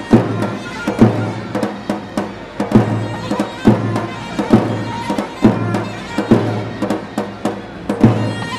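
Iranian folk dance music: a shrill reed pipe playing over a drum that beats a strong stroke a little more than once a second, with lighter strokes between.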